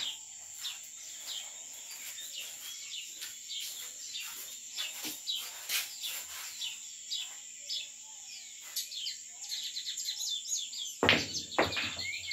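Pool balls clicking on the table as cue shots are played, with a louder sharp knock about eleven seconds in. Behind it are a steady high whine and many short chirps.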